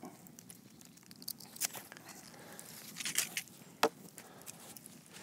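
Knife whittling a wooden stick: a handful of short, sharp scraping cuts, scattered and faint.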